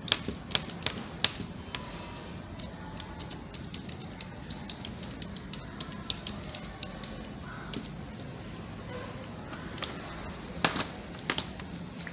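Irregular light clicks and ticks of hands untwisting and straightening the small insulated wires of a stripped Ethernet cable, with a louder cluster of clicks near the end.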